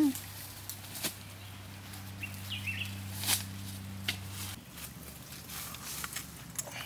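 Footsteps and rustling in dry bamboo leaves, scattered crackles as people shift about on the leaf-covered ground, over a low steady hum that cuts off about two-thirds of the way through.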